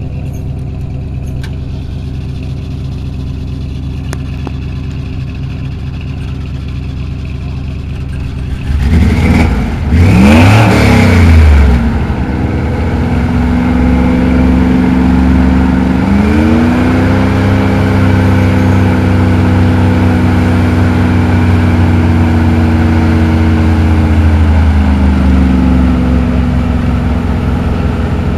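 Early Ford Bronco engine running at a low steady idle, then revving hard about nine seconds in. It then holds steady, higher revs as the truck crawls over the dirt trail, and drops back down near the end.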